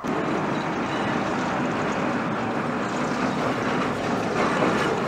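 Train running along the track close by: a steady, loud rumble and rattle of wheels on rails.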